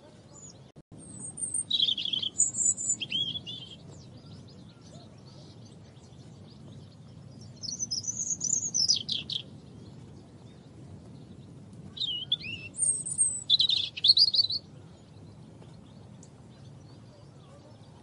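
European robin singing: three short, varied, high warbling phrases a few seconds apart, over a faint steady low background noise.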